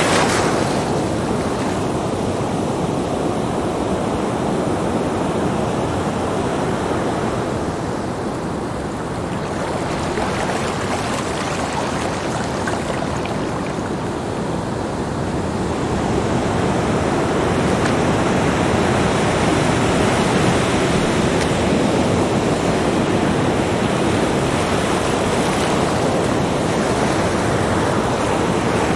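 Small sea waves breaking and washing up a sandy beach, a continuous rush of surf. It eases slightly twice in the first half and swells again through the second half.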